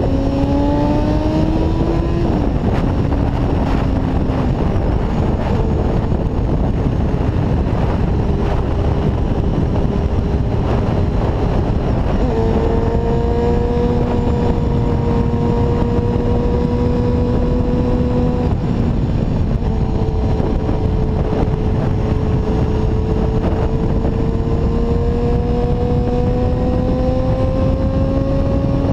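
A 1992 Honda CBR250RR's 250 cc inline-four with an aftermarket Musarri exhaust, heard from the rider's chest while riding, with wind rushing over the microphone. The engine note climbs over the first two seconds and falls away sharply. It runs lower and fainter until near the middle, then comes in stronger and fairly steady, drops again, and climbs slowly through the last third.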